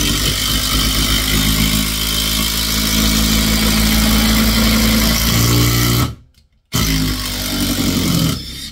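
DeWalt DCF850 cordless impact driver hammering a 150 mm screw into 6x2 timber. It runs in one long burst of about six seconds, stops for half a second, then runs again for a shorter burst to finish the screw. It sinks the screw without stalling.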